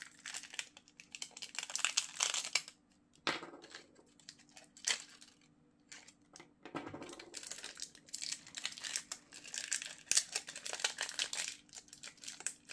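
Thin clear plastic protective film crinkling and tearing as it is peeled off an electric rotary shaver's head unit, with light clicks of the plastic parts being handled. There is a short lull about halfway through.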